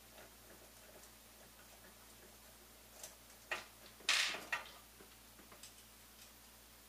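Printed plastic parts and steel smooth rods being handled: a few light clicks and knocks, then a short scraping rattle about four seconds in.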